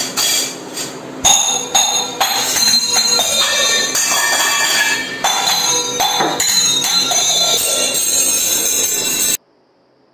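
Loud music with clattering metallic percussion, like jangling and banging on steel utensils, that starts about a second in and cuts off abruptly after about nine seconds.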